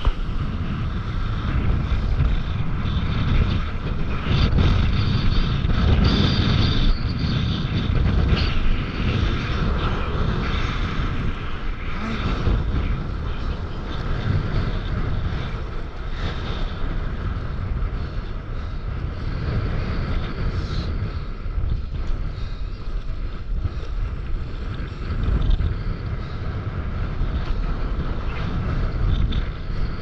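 Wind buffeting the microphone in a heavy, uneven rumble, over sea water sloshing and splashing around a paddleboard.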